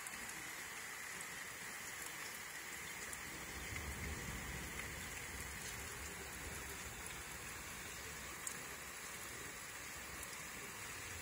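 Rain falling steadily, with scattered drops tapping on the window glass. A low rumble swells for a couple of seconds about four seconds in.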